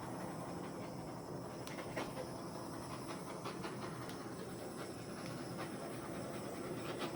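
Hairdryer running steadily, an even airy fan noise with a faint steady hum, blowing wet acrylic paint across a canvas. A few faint ticks sound over it.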